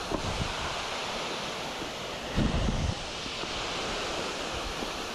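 Wind buffeting the microphone over a steady rushing hiss, with a stronger gust about two and a half seconds in.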